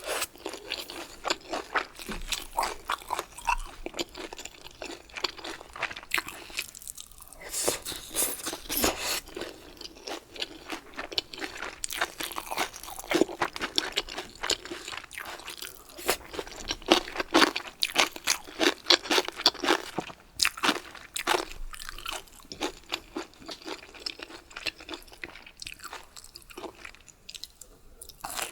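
Close-miked chewing of crunchy bamboo shoots: rapid, crisp crunches that pause briefly about seven seconds in and again near the end.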